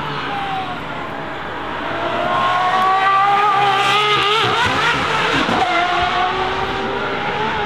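Aston Martin Valkyrie's naturally aspirated 6.5-litre Cosworth V12 accelerating hard past, its pitch climbing as the revs rise and loudest about three to four seconds in. Around five seconds in the pitch wavers and drops as the car pulls away, then climbs again.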